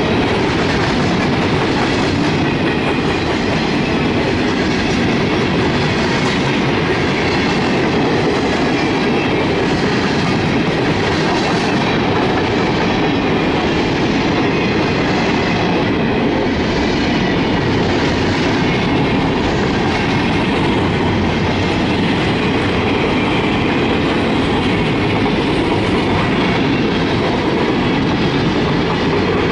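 Freight cars of a mixed manifest train (tank cars, boxcars, gondolas and bulkhead flatcars) rolling past: a steady, loud noise of steel wheels on the rails.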